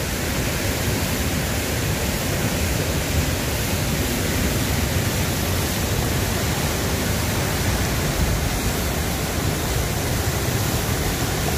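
Steady, even rushing noise of the open-air surroundings, strongest in the low end, with no distinct events.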